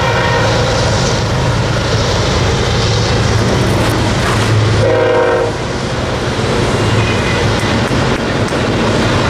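Double-stack container freight cars rolling past on the rails, a loud steady rumble with wheel clatter, and a short steady tone sounding about five seconds in.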